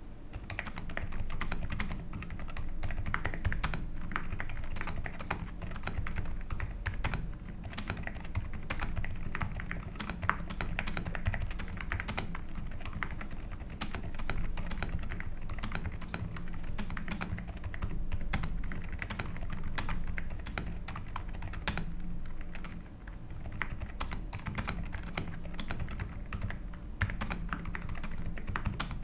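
Continuous typing on an EPOMAKER RT100 mechanical keyboard fitted with sea salt silent switches and MDA-profile keycaps: a steady stream of soft, muffled key clicks with no loud clack, as silent switches are built to give.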